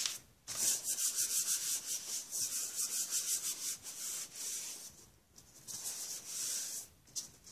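Hands rubbing over sheets of paper pressed onto painted plastic wrap, a dry hissing rub in quick repeated strokes, with a short pause about five seconds in. The rubbing presses the paper down so it picks up the paint.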